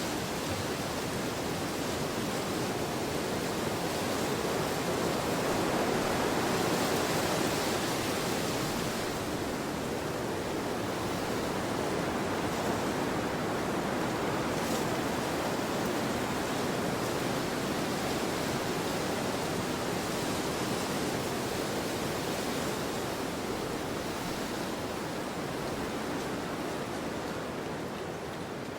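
Wind blowing in a snowstorm: a steady, even noise that swells a few seconds in and eases off slightly near the end.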